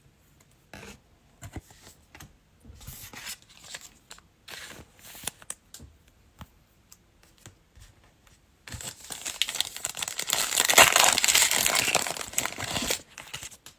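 Trading cards handled with light scattered rustles and clicks, then, about nine seconds in, a foil trading-card pack torn open, loud crinkling for about four seconds.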